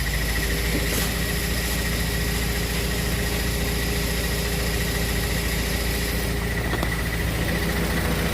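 1997 Honda Civic LX's four-cylinder engine idling steadily, with a thin, steady high-pitched whine running along with it.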